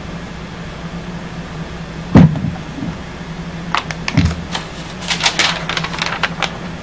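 Sheets of paper being handled close to the microphone: a loud thump about two seconds in, another about four seconds in, then a run of crinkling clicks and rustles, over a steady low hum.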